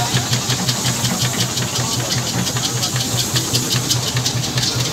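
Steam roller's engine ticking over with a fast, even beat of about six strokes a second, with a light hiss on each stroke.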